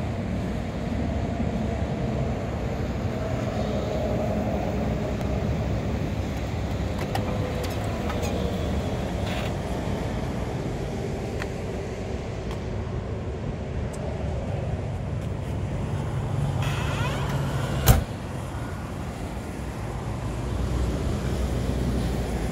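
1967 Chevrolet Camaro SS's V8 idling steadily, with a single sharp click near the end.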